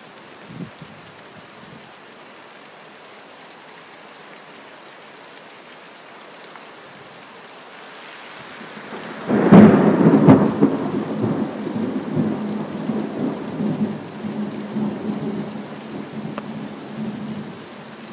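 Steady rain, then about nine seconds in a close thunderclap breaks with a sudden loud crack and rolls on as a long rumble that slowly fades.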